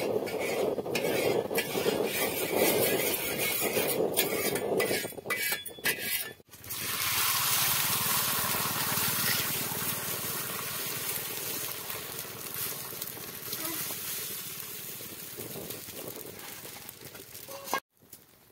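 A flat metal spatula scrapes and spreads oil across a hot iron tawa. About six seconds in, beaten egg is poured onto the hot iron and sizzles loudly at once. The sizzle then slowly dies down as the omelette sets.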